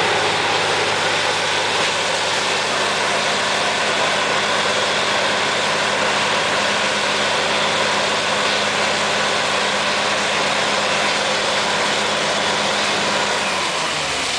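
Borewell drilling rig running steadily: its diesel engine drones under a loud, steady rush of compressed air and water blowing out of a bore that has struck water. Shortly before the end the engine note changes.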